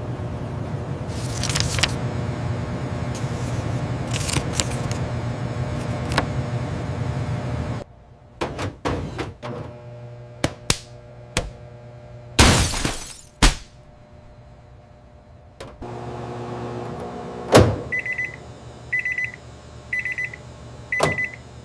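Microwave oven sound effects: a steady running hum, then clicks and a couple of whooshes, the hum again briefly, a sharp click, and a high beep repeating about once a second near the end, the signal that the cycle is done.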